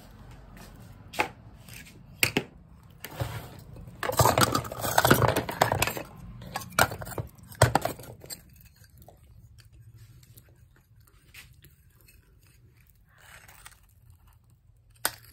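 Hard pieces of baked clay clattering and scraping in a plastic tub as a hand rummages through them, then a sharp crack near the end as a piece of the roasted clay is bitten.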